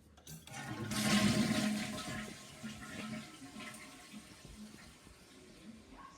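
Toilet flushing: a rush of water that swells about a second in, then dies away into a quieter trickle.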